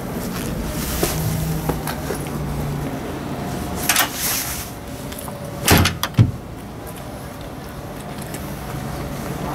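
Excavator cab door being swung shut: a heavy thump with a second, sharper knock just after it, about six seconds in, after a shorter swish of handling noise.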